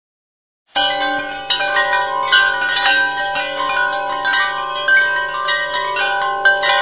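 Background music of layered, overlapping chime-like ringing tones. It starts abruptly about a second in, after a moment of silence.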